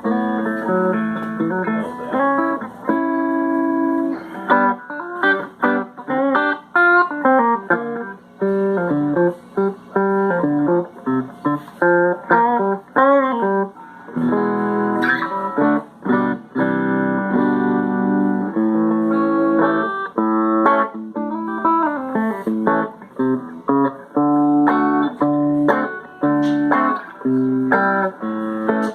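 Electric guitar, a 1994 Fender Stratocaster, played through an amplifier: a run of picked single notes and chords in phrases, with short breaks between them.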